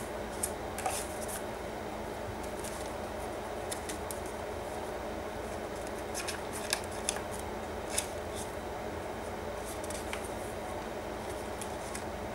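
Paper rustling and crinkling as kraft-paper envelope pockets and pages of a handmade paper journal are handled and turned, with short crisp crackles scattered through, several close together about six to eight seconds in. A steady low hum and hiss lies underneath.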